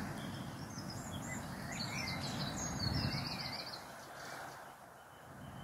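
Small birds singing: several short chirps and a quick trill of high notes in the first half, over a steady outdoor background hiss, with a soft low bump about three seconds in.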